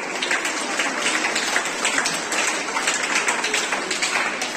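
A group of students clapping: a steady patter of many hand claps.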